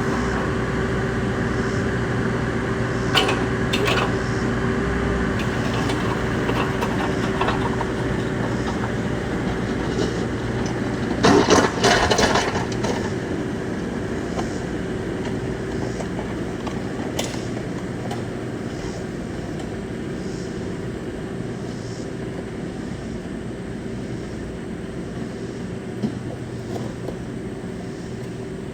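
Bobcat E26 mini excavator's diesel engine running steadily under work, with a held whine. Sharp knocks and clanks come through about three seconds in and, loudest, in a short burst around the middle.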